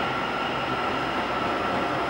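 Taiwan Railways EMU800 electric commuter train running past along the platform: steady rolling noise with a steady high-pitched tone from the train.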